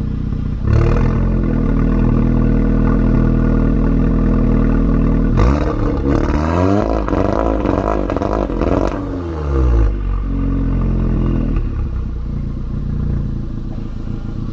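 Volkswagen Golf 7 R's turbocharged 2.0-litre four-cylinder through a Milltek non-resonated exhaust with a custom bypass, revving. The engine steps up about a second in and holds a steady raised note, then revs rise and fall several times in quick succession, with one more short rise before it settles back to a lower speed.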